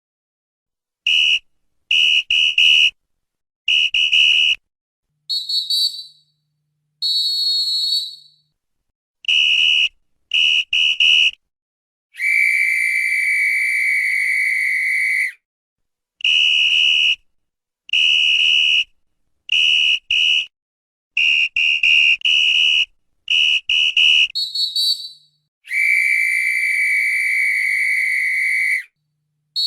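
Referee's whistle blown in a sequence of sharp blasts: groups of short quick toots, a few slightly longer ones, and two long held blasts of about three seconds each. The same run of blasts repeats about halfway through.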